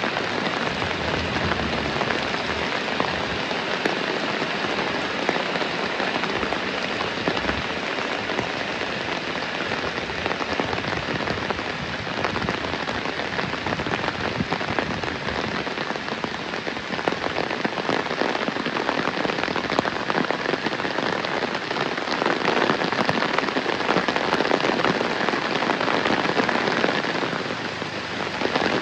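Heavy rain falling steadily: a dense, even hiss of countless drops hitting surfaces, with no let-up.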